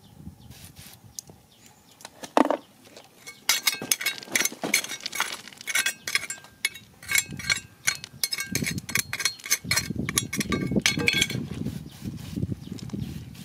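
Hard objects clinking together in quick, irregular strikes, each with a short ringing note, starting about three and a half seconds in and stopping near the end, over lower rustling and handling noise.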